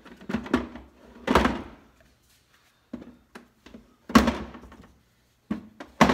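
Milwaukee M18 battery packs knocking and clunking as they are set down into the compartments of a plastic Milwaukee PackOut ammo can: a string of hard thunks, the loudest about a second and a half in and again about four seconds in.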